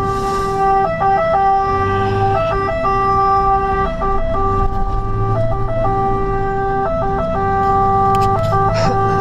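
Fire engine siren sounding continuously, its tone pattern repeating about every one and a half seconds, heard inside the truck's cab over the low rumble of the engine and road.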